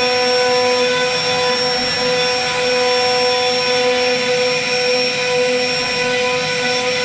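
CNC router spindle running at speed while its bit cuts a relief carving into a wooden panel: a loud, steady whine made of several held tones over the hiss of the cut.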